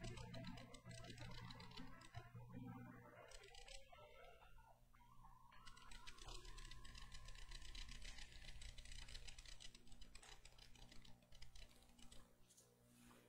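Near silence: the last piano notes die away in the first few seconds, then faint clicking and rustling over a low steady hum.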